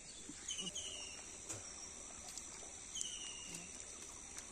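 Outdoor ambience: a steady high-pitched drone of insects, with two short falling bird calls, one about a second in and one about three seconds in, and a few faint clicks.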